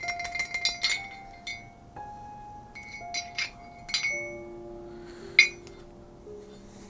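Sharp metal clinks on a steel axe head, each followed by a brief high ring. A few strike close together early on, then single ones come every second or so. Soft background music with slow held notes plays underneath.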